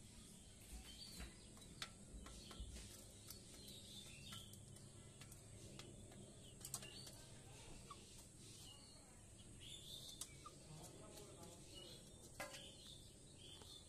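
Chickens pecking at grain, giving faint scattered sharp ticks, with soft high chirps now and then.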